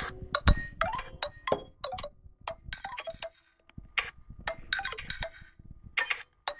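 A Nokia 515 ringtone playing through the phone's small loudspeaker: a quick run of bright, chime-like notes, each struck and fading, with a short break about halfway through before the notes resume.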